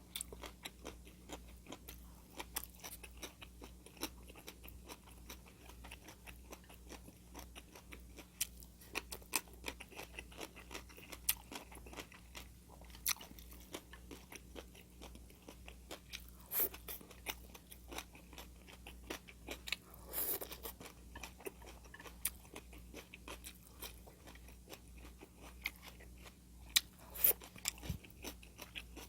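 Close-miked chewing and crunching of food: a dense, steady run of small crisp crunches, with a few louder bites.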